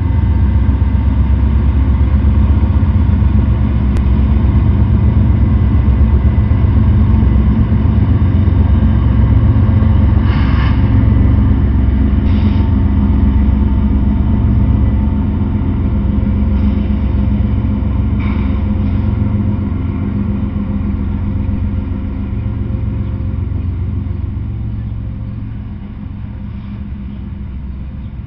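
Norfolk Southern freight train passing close by: the deep, steady rumble of its diesel locomotives, then open-top hopper cars rolling on the rails. The noise eases off over the last several seconds.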